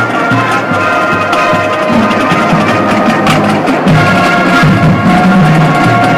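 High school marching band playing: brass holding sustained chords over a stepping low bass line, with drumline percussion striking through it.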